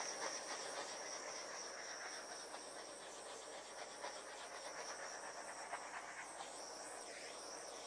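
Small handheld torch hissing faintly and steadily, with a thin high whine, as it is passed over wet acrylic paint to pop surface bubbles.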